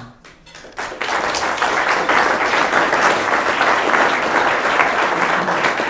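Audience applauding: many hands clapping together, starting about a second in and holding steady.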